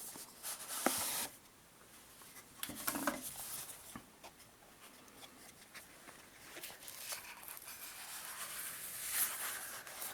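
Knife packaging being handled and opened by hand: faint rubbing, scraping and light clicks, with a longer rustle near the end.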